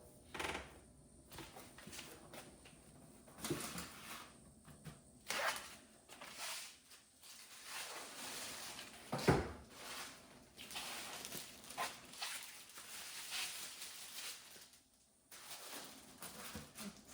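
Irregular wiping, scraping and knocking of someone cleaning inside a refrigerator and handling its plastic drawers, with one sharper knock about nine seconds in.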